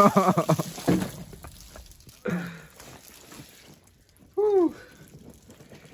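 Water pouring out of an upended pair of chest waders and splashing onto the ground at the start, followed by a few short voice sounds, one of them a brief rising-and-falling call.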